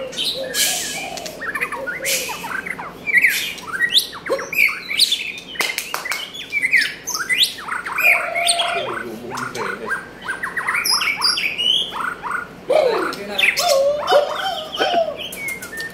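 A caged white-rumped shama singing a varied, continuous string of short whistled notes and pitch slides, mixed with sharp clicks.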